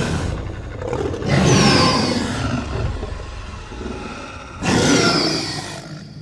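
Dinosaur (T. rex) growl sound effect: a deep growl that surges again about a second in and once more about four and a half seconds in, then tails off near the end.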